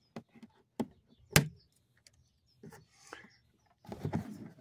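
Plastic latches on a Pelican Catch Power 100's hatch cover being unclipped: a few sharp clicks in the first second and a half, the loudest about a second and a half in, then rustling and handling of the plastic cover near the end.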